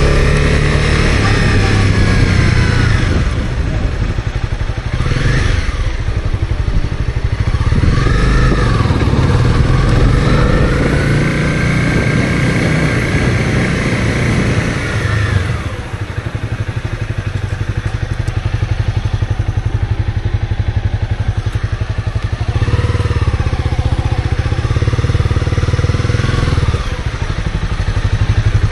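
Honda CB250R's single-cylinder engine running while the bike is ridden, its pitch rising and falling with the throttle, with a drop in level about halfway through.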